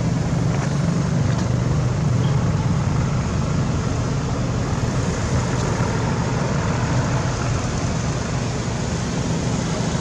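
Road traffic and vehicle engines running nearby: a steady low rumble with a hiss over it, without a break.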